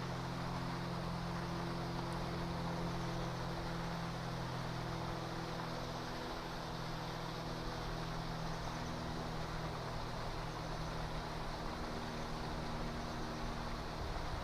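Steady mechanical hum with a constant rushing noise, unchanging throughout.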